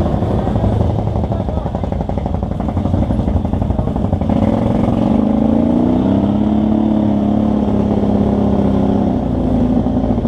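Off-road side-by-side's engine running. About four seconds in its pitch rises as the revs climb, then it holds steady at higher revs.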